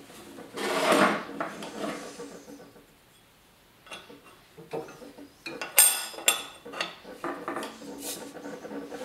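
Hands rubbing and sliding across a scroll saw's metal table, then a run of sharp clicks and knocks, loudest about six seconds in, as a plastic throat-plate insert is fitted into the table's opening.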